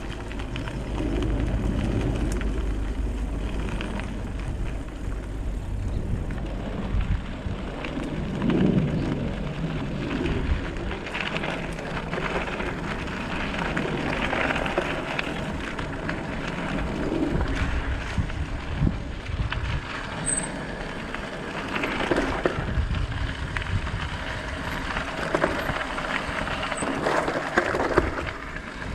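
Electric bike riding over a dirt and gravel trail: tyres crunching on the ground, with frequent knocks and rattles from the bike jolting over bumps. Wind rumbles on the microphone in the first few seconds.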